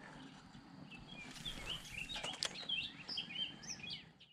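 Songbirds chirping: a run of short, quick high notes that starts about a second in and fades out near the end.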